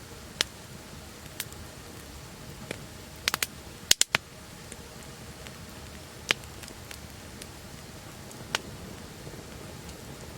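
Campfire crackling: a low steady rumble of burning wood with sharp pops scattered through it, a quick cluster of the loudest pops about four seconds in.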